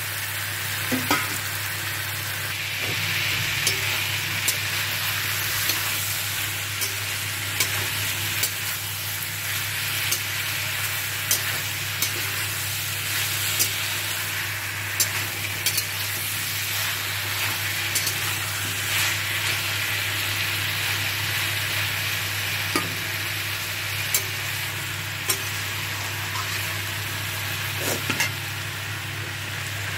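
Pieces of raw banana, papaya and potato sizzling in oil and masala in a metal pan while a metal spatula stirs them, with scattered clicks and scrapes of the spatula against the pan.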